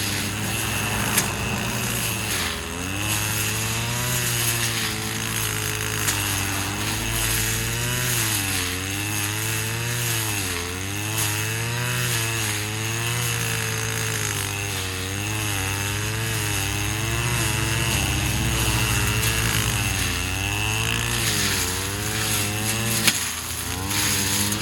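Stihl FS 250 two-stroke brush cutter running while cutting grass, its engine pitch dipping and rising again and again.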